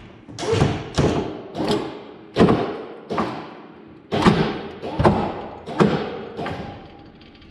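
A series of about nine heavy clunks, roughly one every 0.7 s, each ringing briefly, as a trailer winch strap pulls on the Suburban's bent front-end bracket to straighten it.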